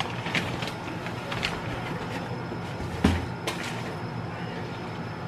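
Pair of denim jeans being unfolded and handled: fabric rustling with a few light clicks, and a dull knock about three seconds in.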